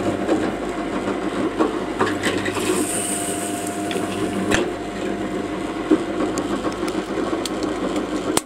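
Drill press running a hole saw through a disc blank: a steady motor hum under rough cutting noise with scattered clicks, cutting off sharply near the end.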